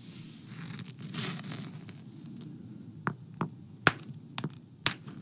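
A flint core being struck in Levallois knapping: about five sharp, clinking strikes in the last two seconds, the loudest two about a second apart.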